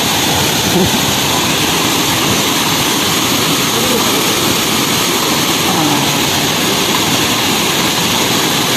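Waterfall: a loud, steady rush of falling water, with faint voices under it now and then.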